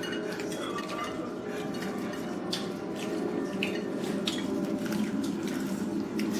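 Cutlery and dishes clinking a few times, over a steady low hum.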